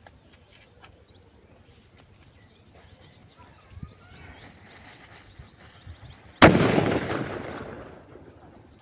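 A sutli bomb, a twine-wrapped Indian firecracker, its lit fuse fizzing faintly, then exploding with one sharp, loud bang a little over six seconds in. The bang dies away over about two seconds.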